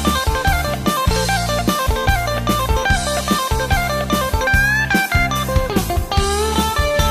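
Background music: a blues-rock instrumental with a lead electric guitar playing runs of notes, bending strings about halfway through, over bass and drums.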